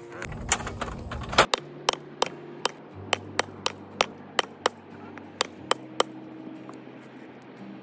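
Sledgehammer striking the top of a wooden fence post, a quick series of about fifteen sharp wooden blows at roughly two to three a second that stops about six seconds in, driving the post deeper into a hole that was too shallow and too narrow for it.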